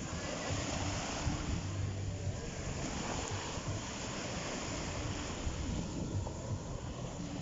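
Small waves washing onto a sandy shore around the hull of a beached outrigger boat, with wind buffeting the microphone. A low hum comes and goes underneath.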